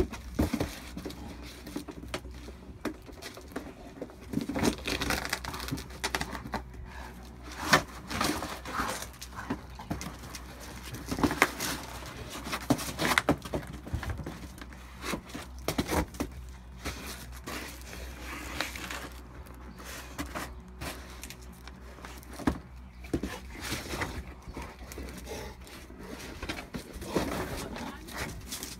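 Chocolate Labrador worrying a cardboard box with his mouth, shaking it and pushing it about on paving slabs: irregular crumples, scuffs and knocks of cardboard, coming in scattered bursts.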